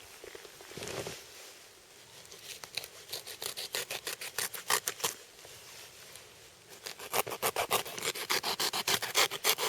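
Knife blade (Helle Temagami) scraping and cutting along a deer's rib bones in quick repeated strokes, faster and louder from about seven seconds in, with a soft rustle near the start.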